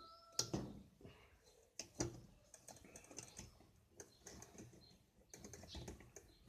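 Faint, scattered clicks and taps of hand tools and metal parts being handled on a washing machine's transmission while the part holding the pulley is unscrewed, with a small cluster of clicks near the end.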